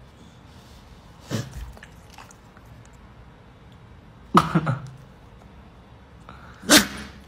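A dog gives three short, cough-like huffs or snorts, about a second, four seconds and nearly seven seconds in; the middle one is the loudest and carries a brief low voiced grunt.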